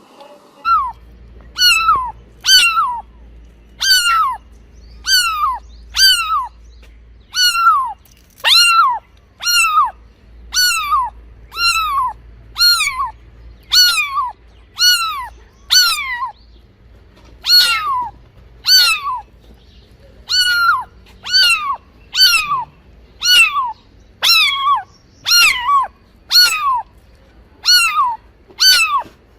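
A cat meowing over and over: short, falling, high-pitched meows about once a second, with a couple of brief pauses.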